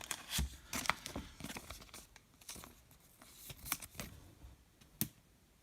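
Baseball card pack wrapper tearing and crinkling, with scattered light rustles and clicks from cards being handled, and a sharper click about five seconds in.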